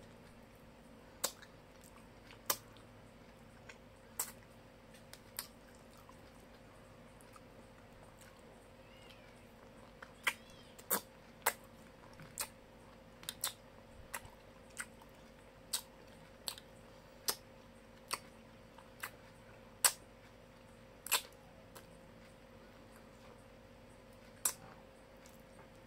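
Close-up eating sounds of someone chewing fried chicken and rice: irregular sharp mouth clicks and smacks, some seconds apart and some in quick runs, over a steady low hum.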